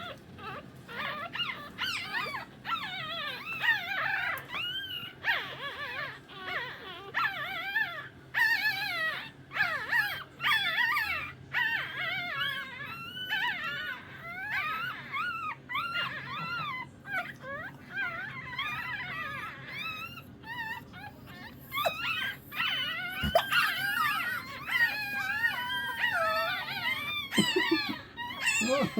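Several Shih Tzu puppies whimpering and crying, with many short, high cries rising and falling over one another without a break.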